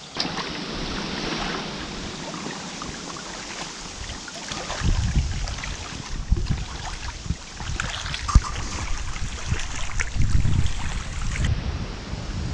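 Waves splashing against a rocky shore in a strong, gusty wind, with the wind buffeting the microphone in heavy gusts about five seconds in and again near ten seconds. A single sharp click a little past eight seconds.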